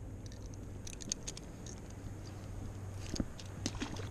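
Scattered small metallic clicks and taps of long-nosed pliers and a fish lip-grip while a hook is worked out of a tautog's mouth, over a low steady background noise.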